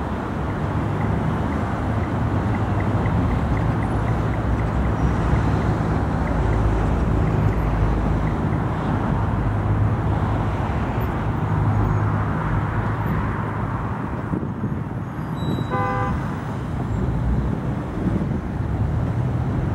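Tatra trams running along street track among road traffic: a steady low rumble and hum of wheels, running gear and motors. A short horn toot sounds about sixteen seconds in.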